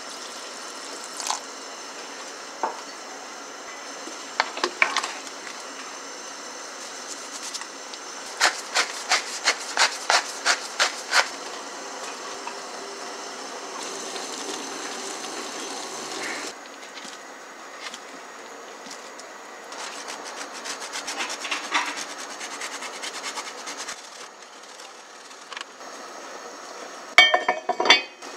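Kitchen cooking sounds over a steady hiss, with scattered knocks and a run of about eight evenly spaced knocks a little over a third of the way in. Near the end comes a sharp metallic clatter with a brief ring as the heavy lid goes onto an enameled cast-iron Staub cocotte.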